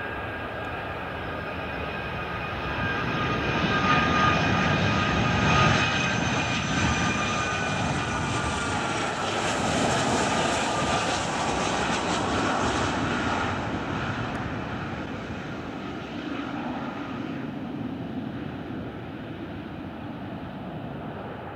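Twin jet engines of a Boeing 757 airliner on landing approach passing close by. A steady rumble and engine whine swells as it nears, the whine tones sliding slowly down in pitch as it goes by, then the sound fades away.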